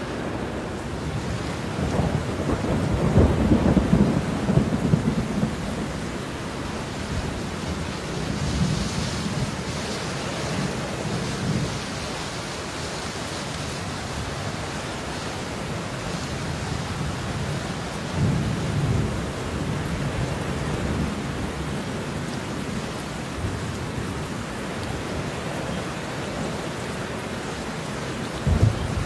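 Steady rain hissing, with low rolling thunder: a long rumble swells about two seconds in, more rumbles follow around nine to eleven seconds and about eighteen seconds in, and sharper thunder cracks near the end.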